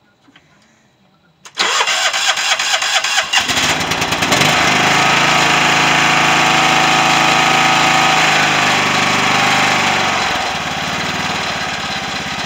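Old John Deere riding mower's engine being cold-started: the starter cranks for about two seconds, the engine catches and speeds up, then runs steadily and smoothly, easing down to a slightly lower speed near the end.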